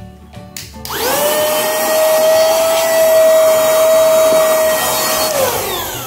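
LT-117 handheld cordless vacuum cleaner switched on about a second in: its motor spins up to a steady high whine with a rush of air, then winds down in pitch near the end as it is switched off.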